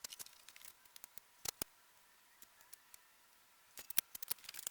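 Light metal-on-plastic clicks of tool sockets being set onto a socket organizer tray's posts. A cluster comes near the start, a couple more near the middle, and a quick run near the end.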